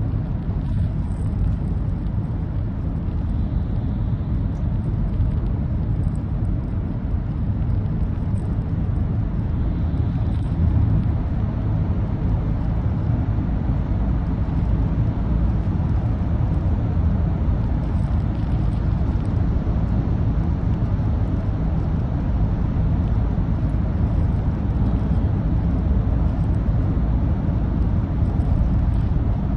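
Steady low rumble of car road noise, tyres and engine, heard from inside the cabin while driving through a road tunnel.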